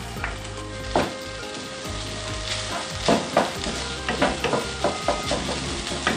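Minced chicken and shredded dried scallop sizzling in hot oil in a wok, stirred with a wooden spatula. Under the steady sizzle the spatula scrapes against the pan, once about a second in and then in quicker strokes through the second half.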